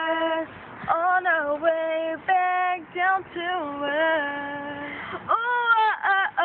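A woman singing unaccompanied: a held note, then a run of short sliding notes without clear words, rising to a higher swelling note near the end.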